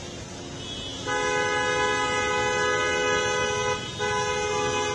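A vehicle horn sounding in two long steady blasts, the first about two and a half seconds long and the second about a second, over a steady street background.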